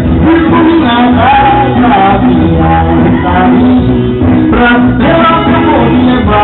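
Forró song playing loud, with a singing voice over the band.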